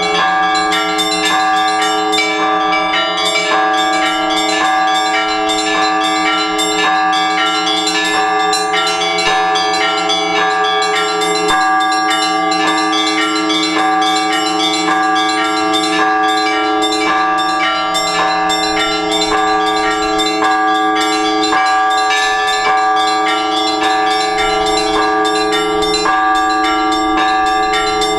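Orthodox church tower bells of several pitches rung together by a bell-ringer in a dense, steady rhythm of strikes, each stroke ringing on over the others, with the hum of a lower bell beneath.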